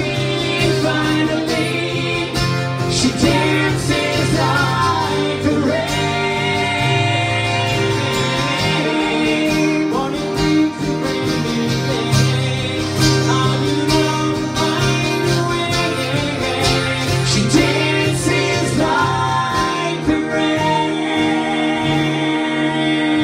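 Live acoustic country-folk song: two acoustic guitars strummed, with voices singing over them.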